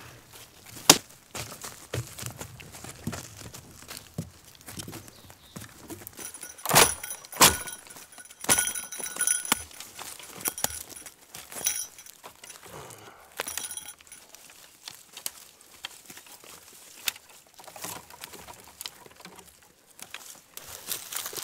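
Dry dead branches being snapped and pulled from a brush pile by hand for firewood. Sharp cracks come at irregular moments, with twigs rustling and scraping in between; the loudest snap is about a second in, and a cluster of cracks follows about halfway through.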